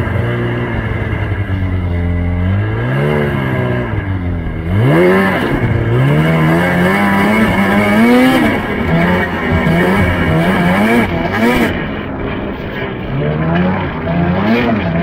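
A motor vehicle engine running and revving, its pitch rising and falling again and again, about once a second for most of the stretch.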